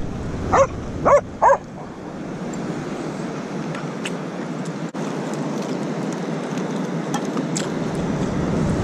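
A dog barks three times in quick succession in the first second and a half, then only a steady background of wind and surf noise remains.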